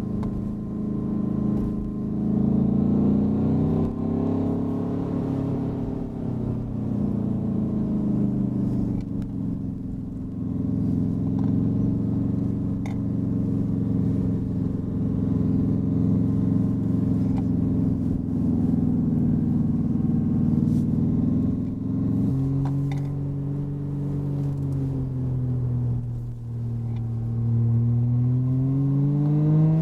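Renault Clio 4's R-Sound Effect, an artificial engine sound played through the car's speakers. The engine note rises and falls with the throttle and holds steady through a long middle stretch. It changes abruptly about 22 seconds in and climbs steadily near the end.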